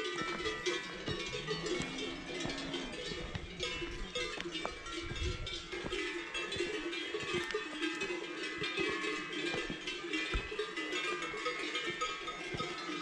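Many cowbells clanking and ringing irregularly, several bells at different pitches at once.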